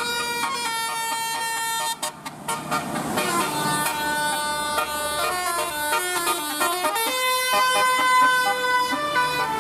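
Basuri 'telolet' bus horn, a multi-tone air horn playing a tune of held notes that step up and down, with a short break about two seconds in.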